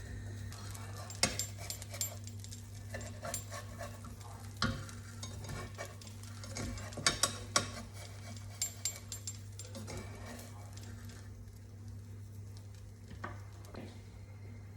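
Food frying in a pan with a light sizzle, while a utensil taps and scrapes against the pan in scattered clusters of clicks. A steady low hum runs underneath.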